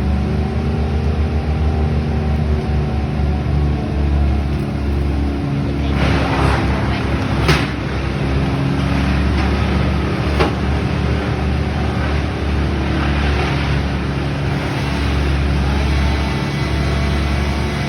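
A motor engine running steadily at an even speed, with two sharp knocks about a third and halfway through.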